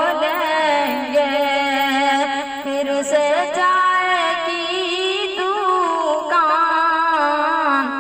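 A boy singing solo and unaccompanied into a handheld karaoke microphone, holding long, wavering notes and sliding slowly between them.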